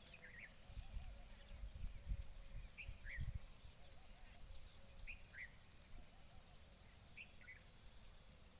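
A bird calling in short paired chirps that repeat about every two seconds, over faint outdoor background, with low wind rumble on the microphone for a couple of seconds near the start.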